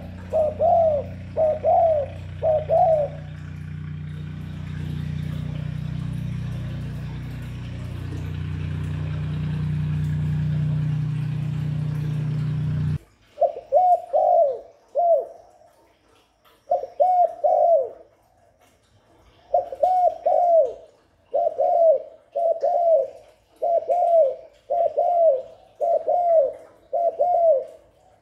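Spotted dove cooing its call over and over, in short phrases of two or three notes with pauses between. Through the first half a steady low hum runs under it and cuts off suddenly about halfway through.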